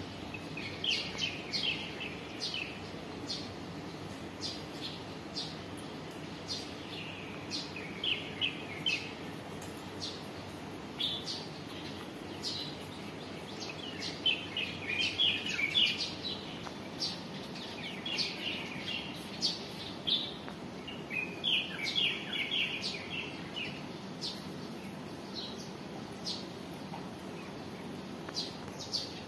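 Small birds chirping: quick runs of short, high notes come again and again, some clusters of several notes close together. Under them is a steady low background noise.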